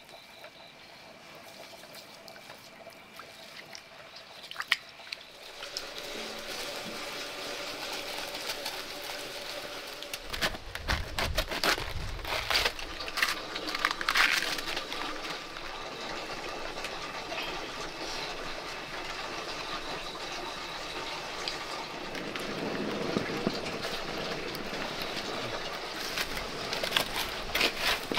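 Hand food preparation: water trickling and splashing as rice is rinsed in a bamboo basket, and a cleaver cutting cabbage, with many scattered clicks and knocks over a steady hiss.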